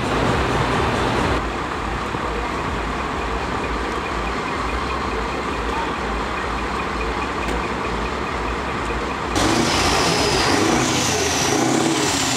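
Heavy diesel truck engines idling with a low, steady rumble. The sound changes abruptly twice as the footage cuts from one clip to another.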